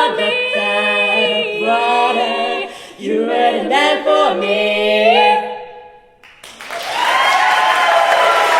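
Barbershop quartet singing the closing bars a cappella in close harmony, ending on a held final chord that fades out about five and a half seconds in. Audience applause breaks out about a second later.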